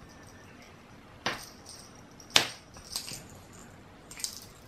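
Small metal bell on a string cat toy jingling and clinking as a cat bats at it, with sharp knocks against the wooden floor, the loudest about two and a half seconds in.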